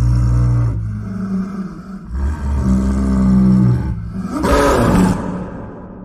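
Big cat growling: two long, deep drawn-out growls, then a harsher, rasping snarl about four and a half seconds in that fades away.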